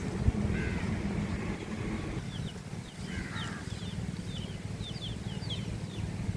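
Birds calling: two harsh, caw-like calls, and a quick run of short, high chirps from a smaller bird, over a low wind rumble.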